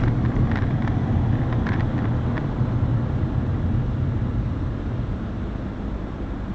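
Steady low drone of a car being driven, engine and road noise, with a few light ticks in the first couple of seconds; it eases off slightly near the end.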